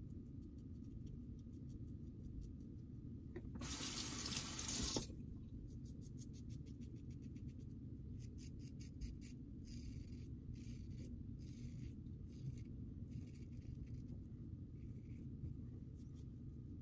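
Wolfman WR2 safety razor drawn in short, repeated scraping strokes through lathered stubble on the neck and face. A tap runs briefly, about a second and a half, around four seconds in.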